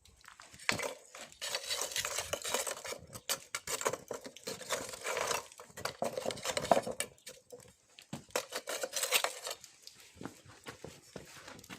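Pieces of charcoal clinking and clattering in a small Japanese charcoal grill as it is being lit: irregular sharp clicks and light rattles, busiest in the middle and thinning out near the end.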